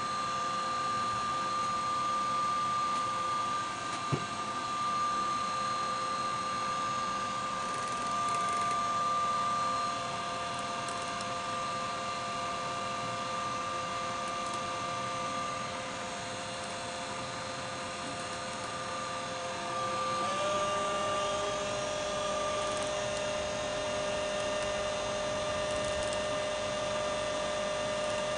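Silverson L5M-A laboratory high-shear mixer running steadily with a motor whine as it mixes a liquid while hyaluronic acid powder is spooned in. There is a light knock about four seconds in, and about twenty seconds in the whine steps slightly higher in pitch.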